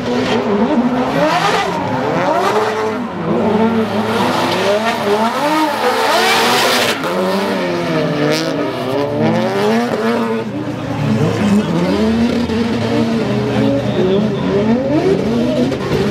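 Two drift cars running in tandem: their engines rev up and down, pitch rising and falling as the throttles are worked, with tire squeal and hiss from the spinning rear tires, loudest about five to seven seconds in.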